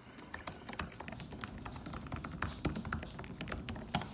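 Typing on a computer keyboard: a quick, irregular run of key clicks while logging back in.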